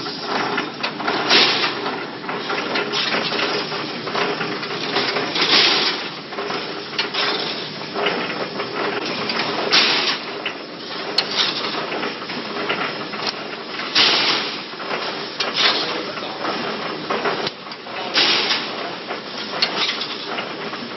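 Automatic steel wire mesh welding machine for 3–6 mm wire running: a steady mechanical clatter with a loud metallic clank every one to two seconds.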